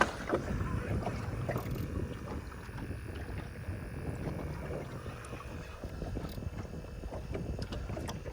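Wind buffeting the microphone over water moving around a small boat, a steady rumbling hiss with a few faint ticks.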